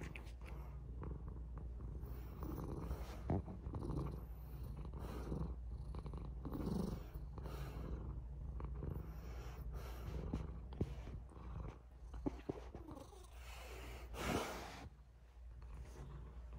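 Domestic cat purring steadily, a low continuous rumble, with a few soft clicks in between.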